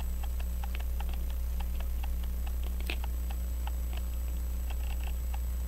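Steady clockwork ticking, about five ticks a second, with one sharper metallic click about three seconds in, over a constant low hum.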